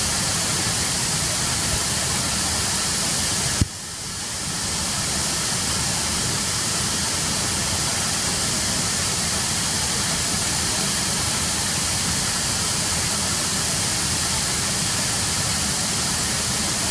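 Steady rush of water falling at Ryumon Falls, an even noise with no break in it. A sharp click a little under four seconds in is followed by a brief dip in the sound, which swells back within about a second.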